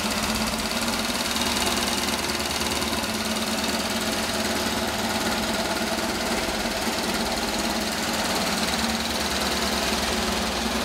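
1938 AJS 38/22 racer's 350cc single-cylinder overhead-valve four-stroke engine, running on methanol, firing steadily at an even pace.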